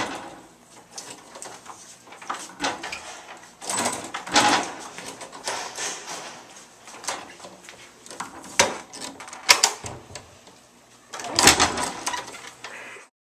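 A door being opened and shut over and over, with latch clicks and knocks at uneven intervals.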